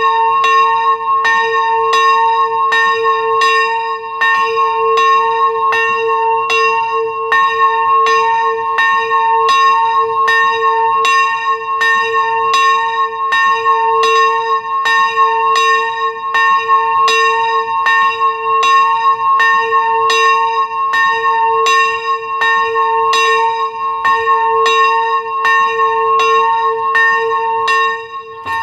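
A single small bronze church bell, strike note a2, swinging and rung, its clapper striking at an even pace of about three strokes every two seconds, each stroke ringing on into the next.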